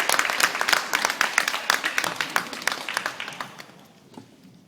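Audience applauding, the clapping thinning out and dying away about three and a half seconds in.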